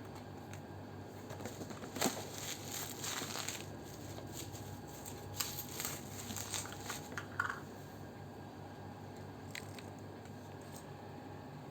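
Packaging of a boxed toddler milk powder being handled: two spells of crinkling and rustling, the first about a second in and the second about halfway through, then a few faint clicks.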